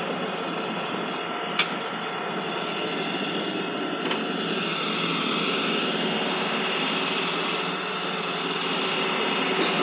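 A vehicle engine running steadily, with a steady whine over it, most likely the tow truck. Two short sharp clicks come about one and a half and four seconds in.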